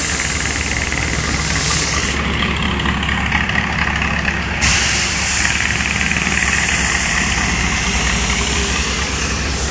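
Heavy diesel road-works machinery running steadily, from an asphalt-laying crew, with a low throbbing hum. A hiss drops away about two seconds in and comes back a little before five seconds.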